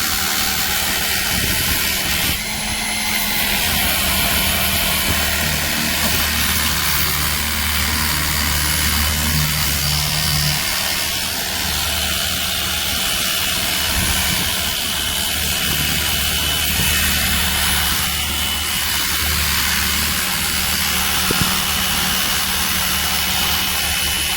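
Cordless 700 PSI handheld pressure washer running on a more powerful spray setting: a steady pump and motor hum with a thin high whine under the hiss of the water jet. It cuts off suddenly at the end as the trigger is released.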